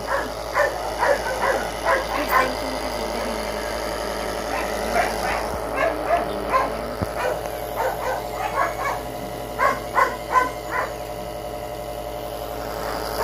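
Newborn American Bully puppies crying: short, high squeaking cries in quick runs of about three a second, with a lull around three to four seconds in. A steady low hum runs underneath.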